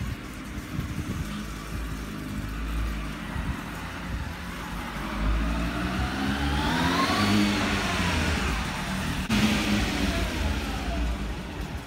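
600cc motorcycle engine riding up and passing, inside a concrete garage corridor. Its pitch rises to a peak about seven seconds in, then falls as it moves away. A sharp click comes about nine seconds in.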